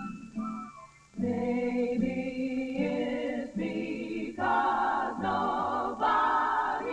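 A female vocal group singing in close harmony, holding sustained chords. The singing breaks briefly about a second in, then swells louder a little past the middle.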